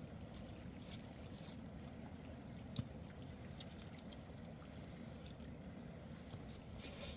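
Faint, steady low rushing of a mountain river, with one sharp click about three seconds in.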